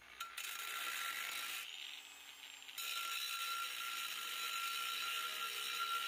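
A power tool cutting through a welded-in steel angle iron: a steady high whine over hiss. It drops away for about a second, two seconds in, then picks up again.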